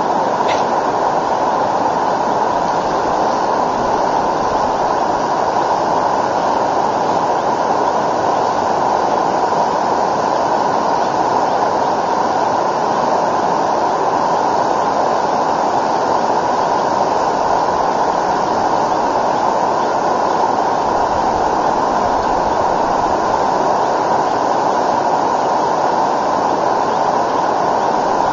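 Steady loud rushing of a fast river flowing past the bank, an even, unbroken noise.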